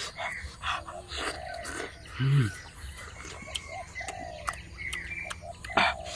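Chickens clucking, with small birds chirping and scattered light clicks; one louder, low cluck comes about two seconds in.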